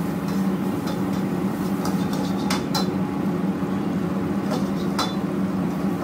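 Metal wok ladle clanking and scraping against a wok as noodles are stir-fried, a few sharp clanks standing out, two close together midway and one near the end, over a steady low hum of the kitchen's burners and extraction.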